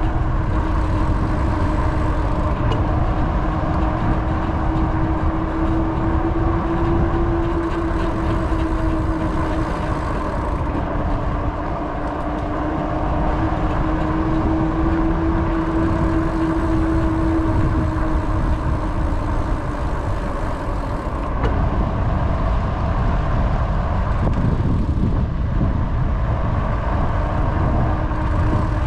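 Rumble of wind on the microphone and tyre noise from riding along a paved trail, with a steady hum that drifts slightly in pitch and fades out about two-thirds of the way through.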